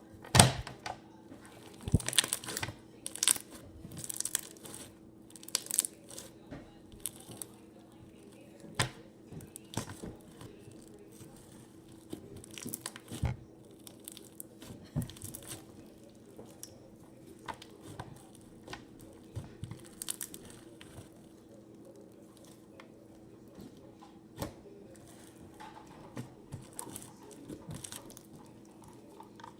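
Slime being squeezed, stretched and poked by hand, making irregular crackles, pops and tearing sounds, thicker in the first few seconds and again near the end, over a faint steady hum.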